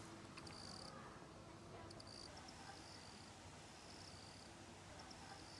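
Faint high-pitched insect chirping, short trills repeating every second or so over quiet night ambience.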